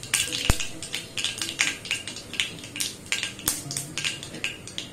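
Mustard seeds crackling and popping in very hot oil in a stainless-steel kadhai, as irregular sharp pops several times a second, with one harder knock about half a second in.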